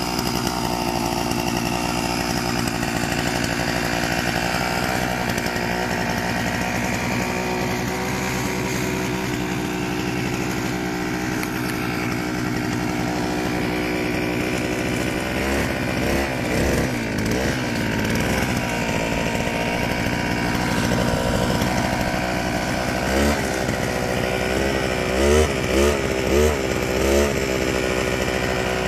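Small petrol engine of a go-ped style scooter running steadily at idle, with a brief rev about halfway through and a quick run of short throttle blips in the last few seconds.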